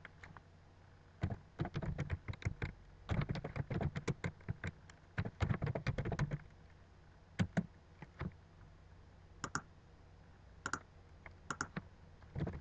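Typing on a computer keyboard: quick runs of keystrokes for about five seconds, then a few scattered single clicks.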